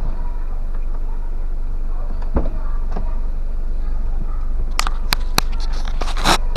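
Nissan Serena running with a steady low rumble, its cylinder 3 misfire repaired. Several sharp clicks and knocks come in the second half, the loudest just before the end.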